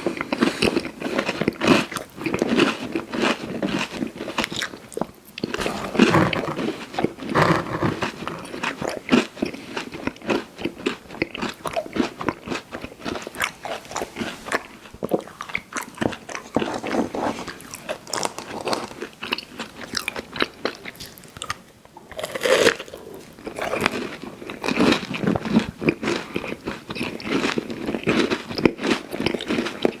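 Close-miked chewing and crunching of candy in the mouth: a dense, irregular run of bites and crunches that pauses briefly a little after the twenty-second mark before starting again.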